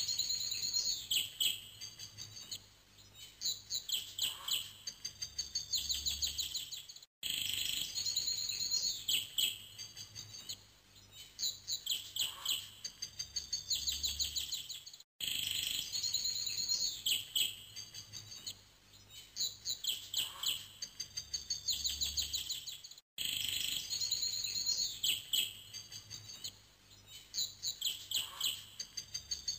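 Birds chirping and trilling in a looped background recording: the same stretch of song repeats about every eight seconds, with a brief drop-out between repeats.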